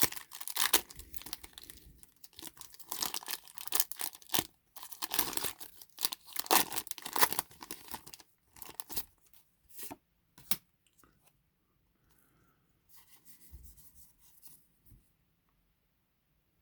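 Foil trading-card booster pack wrapper being torn open and crinkled: dense crackling for about eight seconds, then only a few faint clicks and rustles.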